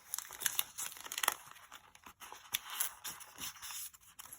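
Paper sticker sheets and packaging being handled: irregular rustling and crinkling with many small, sharp crackles.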